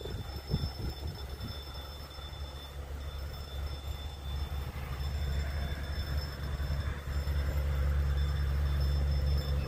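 Narrow-gauge Lok 33 leaving Hettstedt, heard approaching before it comes into view: a low rumble that grows steadily louder, with a rising hiss joining it from about halfway.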